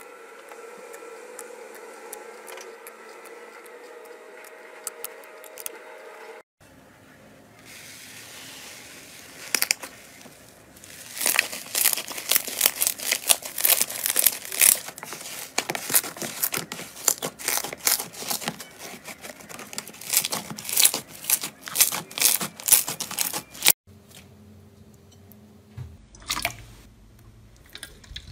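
A knife blade slicing through kinetic sand, with faint ticks. Then airy rainbow slime is stretched and pulled into strands by hand, making a dense run of sharp crackles and pops that is the loudest part. Near the end, hands press clear slime, with soft squishes.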